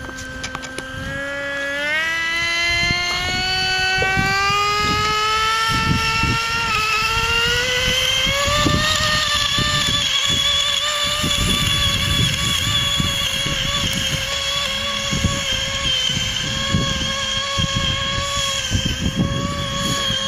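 RC model flying boat's motor and propeller whining at high throttle as it taxis across the water. The pitch climbs steadily over the first nine seconds or so, then holds high and steady, and the motor cuts off right at the end. Wind buffets the microphone throughout. The model does not get airborne, which the onlookers put down to not enough power.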